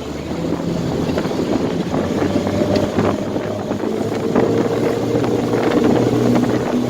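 Twin 60 hp Mercury Command Thrust four-stroke outboards throttling up as the boat gets under way, getting louder over the first couple of seconds and rising in pitch about four seconds in, with water rushing past the hull and wind on the microphone.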